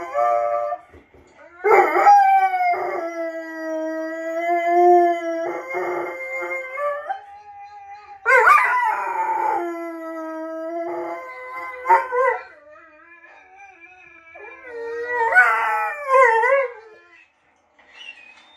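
Wolfhound howling with other wolfhounds' howls from a video, a series of long howls, some held steady and some wavering, with short breaks between them, overlapping in places. The howling dies away near the end.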